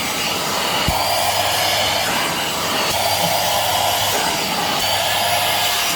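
Deerma 2-in-1 corded stick vacuum running steadily with its corner tool fitted, sucking up fallen hair from a carpet: a loud, even motor whine and rush of air, with a brief low bump about a second in.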